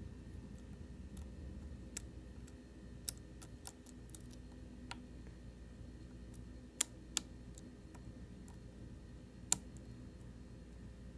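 Light, irregular metallic clicks of a pick and tension wrench working the pins of a Medeco M3 lock cylinder, with a couple of sharper clicks a little past halfway.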